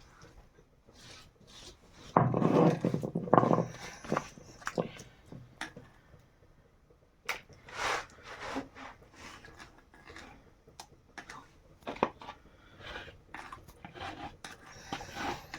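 Irregular knocks, taps and scrapes of hands-on kitchen work, with a louder, noisier stretch about two seconds in.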